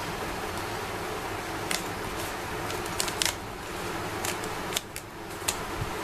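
A plastic 3x3 Rubik's cube being turned by hand, its layers giving a scattering of short, sharp clicks at uneven intervals over a steady background hiss.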